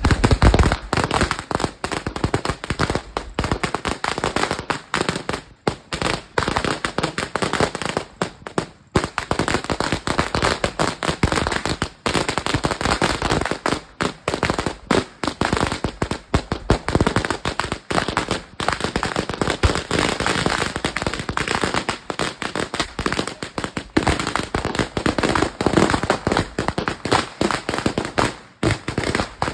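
Dreamlight Fireworks 'sawa' 5,000-round firecracker string going off in a continuous rapid crackle of densely packed bangs, with only a few brief gaps.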